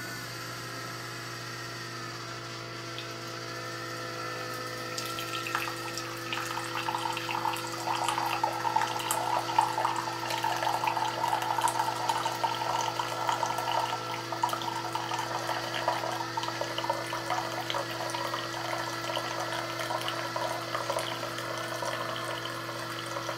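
Single-serve pod coffee maker brewing: its pump hums steadily, and from about five seconds in a stream of coffee runs into the ceramic mug, pouring and splashing.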